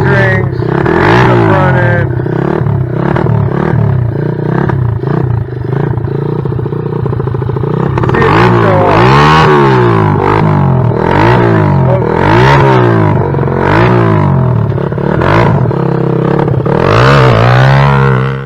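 125cc pit bike engine revving up and down over and over, its pitch climbing and falling about every one to two seconds.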